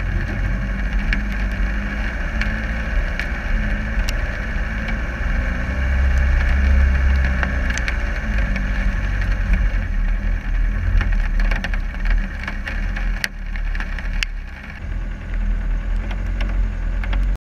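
Land Rover Discovery 300Tdi's 2.5-litre four-cylinder turbodiesel running under load as the 4x4 crawls over mud and rocky track, heard from the bonnet, with scattered sharp clicks. It is loudest about six seconds in, eases off around fourteen seconds, and the sound cuts off abruptly right at the end.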